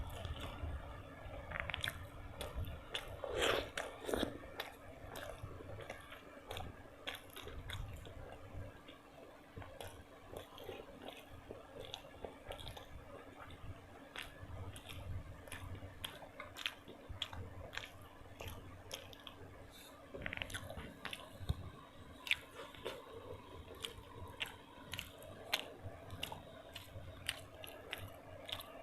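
Close-miked eating: a person chewing and biting food, with many small irregular mouth clicks and an occasional crunch.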